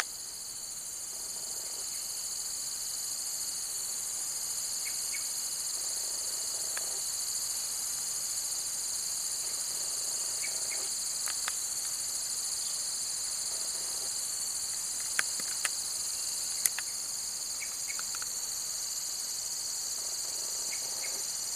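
Steady, high-pitched chorus of insects, with a few faint short chirps and a few sharp clicks about three-quarters of the way through.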